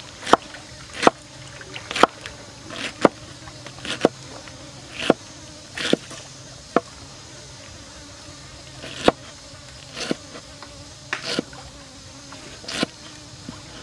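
Kitchen knife chopping pineapple on a wooden cutting board: each stroke cuts through the fruit and knocks on the board, about once a second, with a pause of a couple of seconds midway.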